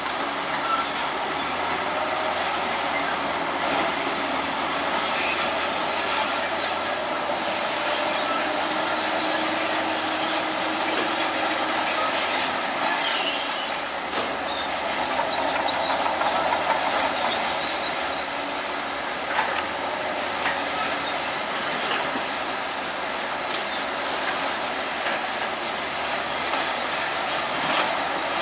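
Crawler bulldozer working: its diesel engine running steadily while the steel tracks clank and squeal.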